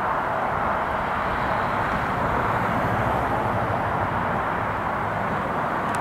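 Steady outdoor background noise, an even hiss with no distinct events.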